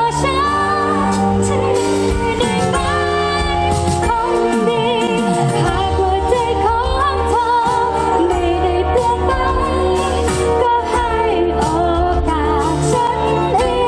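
A woman singing a pop song live into a handheld microphone, with a band playing behind her.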